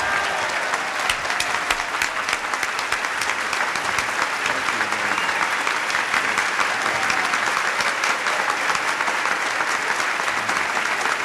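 A large banquet crowd giving sustained applause, a steady dense patter of many hands clapping with no let-up.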